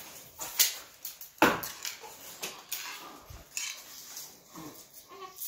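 Scattered clicks and knocks on a tiled floor as a leashed dog moves about, the loudest knock about a second and a half in, with a short animal cry near the end.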